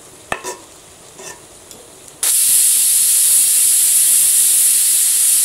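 Aluminium pressure cooker whistling: about two seconds in, steam bursts from the weight valve as a sudden loud, steady hiss. This is the third whistle, the sign that the rice and dal are cooked. Before it, a few light clinks of a ladle stirring in a steel pan.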